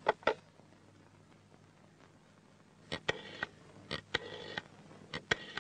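Black desk telephone handled: two sharp clicks as the handset comes off the cradle. About three seconds later the phone is dialled, a run of clicks with short whirring spells in between.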